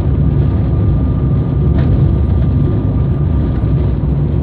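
Car driving at road speed, heard from inside the cabin: a steady low rumble of engine and tyre noise, with a faint steady whine above it and a small tick about two seconds in.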